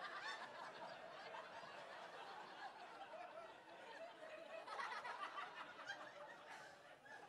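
Audience laughing, faint and continuous, with a louder swell of laughter about five seconds in.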